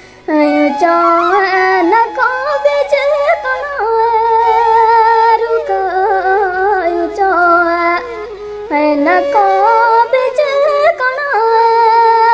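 Gojri folk song: a solo voice singing an ornamented, wavering melody over music, starting just after the opening and pausing briefly about eight seconds in.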